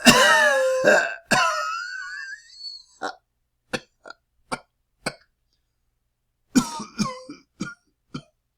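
A man coughing: two long, loud, strained coughs with voice in them at the start, then five short single coughs about half a second apart, a pause of just over a second, and a quick fit of several coughs near the end.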